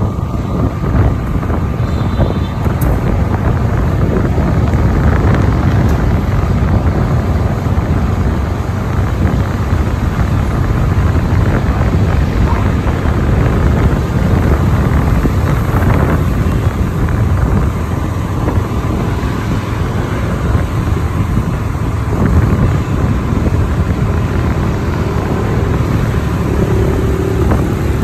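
Steady rumble of a moving road vehicle, with wind buffeting the microphone.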